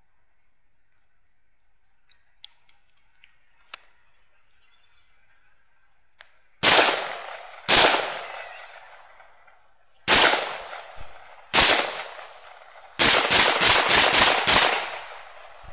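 Rifle shots: after a few faint clicks, four shots about a second or more apart, then a quick string of about six shots in under two seconds near the end, each report trailing off in an echo.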